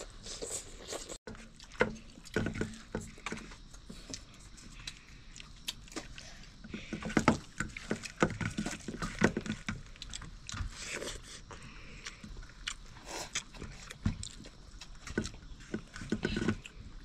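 People eating rice and chicken curry: close chewing and biting, with many irregular clicks and knocks.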